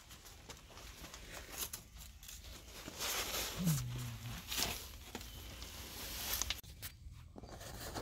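Cardboard rustling and scraping in irregular crackles as a person shifts and crawls on a sheet of it over sandy ground, with a short, low grunt about halfway through.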